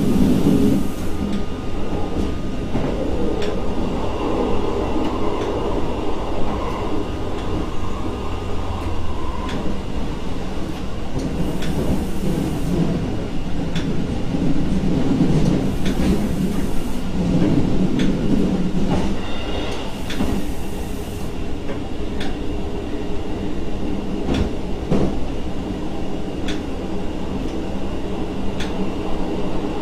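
Diesel multiple unit running along the track, heard from inside the driver's cab: a steady low rumble and drone with scattered sharp clicks as the wheels pass over rail joints.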